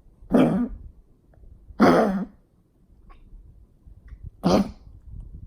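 Repeated coughing: three separate coughs, each about half a second long, spaced a second and a half to two and a half seconds apart.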